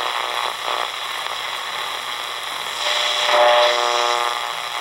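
Redsun RP300 shortwave receiver being tuned up the 31-metre band: hiss and static between stations from its speaker, with a station's signal coming through briefly about three seconds in as steady whistling tones.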